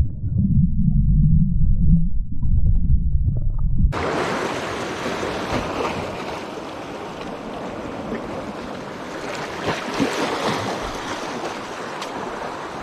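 A muffled low underwater rumble of moving water. About four seconds in it cuts abruptly to the steady hiss and wash of small surf breaking over shoreline rocks, with wind on the microphone.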